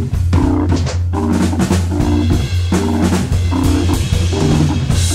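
Jazz-funk organ trio music: a drum kit groove with a steady low bass line and short chord stabs repeating about once a second.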